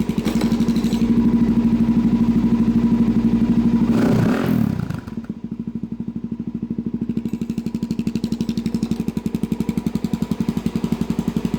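Suzuki DRZ400SM's single-cylinder four-stroke idling through a Yoshimura full exhaust, a steady thumping beat. About four seconds in there is a brief clatter and scrape at the muffler outlet, and the exhaust note then carries on clearly quieter as the homemade baffle insert, cut from the old header, goes into the outlet.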